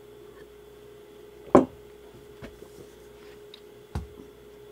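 Containers and utensils handled on a kitchen counter: one sharp knock about a second and a half in and a softer one near the end, with a few light clicks, over a steady faint hum.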